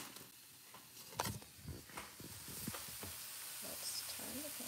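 A few soft knocks and rubs of a phone being handled, then the faint sizzle of a vegetable blend sautéing in sesame oil in a wok, growing over the last couple of seconds.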